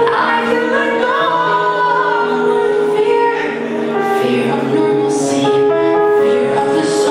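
Music with a woman singing over the accompaniment.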